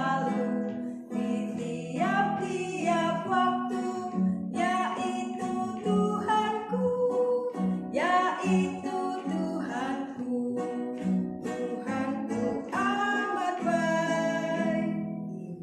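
A woman singing a children's church song with acoustic guitar accompaniment. The song ends near the end.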